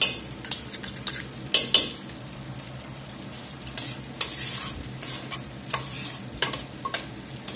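Tongs stirring mushrooms, carrots and shallots in a stainless steel stockpot, clicking and scraping against the pot at irregular moments. Underneath, the white-wine liquid simmers with a steady sizzle as it starts to cook off the alcohol.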